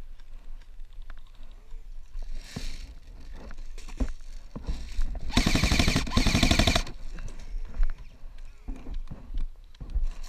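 Airsoft electric rifle firing on full auto: one rapid burst of about a second and a half, a little over five seconds in.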